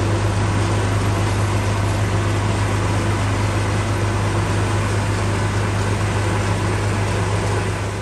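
White 140 tractor and forage harvester running steadily under load while chopping green crop and blowing it into a wagon: a steady low engine hum with an even rushing noise over it.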